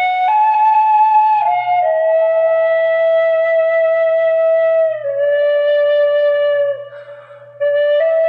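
Celtic flute playing a slow melody of held, steady notes, one of them held about three seconds, with a short breath break near the end before the tune resumes.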